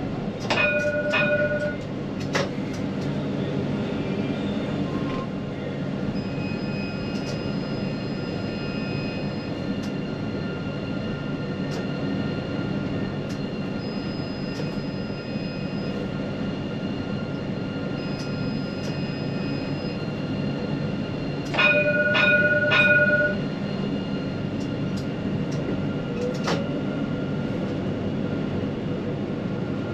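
Lyon T3 tram running, a steady low rumble with faint high electric whines that come and go. Twice, about a second in and again about three quarters of the way through, a brief ringing warning signal with several quick strikes sounds, the loudest thing heard.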